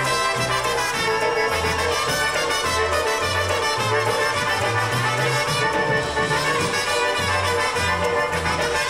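Live polka band playing, with brass over a bass line that steps back and forth between low notes in a steady oom-pah pattern.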